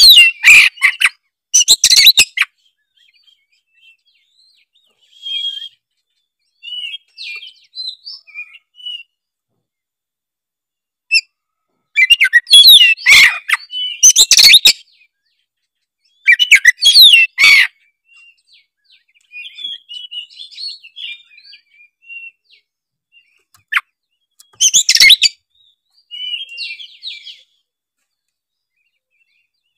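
Oriental magpie-robin (kacer) singing in full, vigorous song: several loud bursts of rapid, varied high-pitched phrases, near the start, around the middle and about three-quarters through, with softer scattered notes and short pauses between.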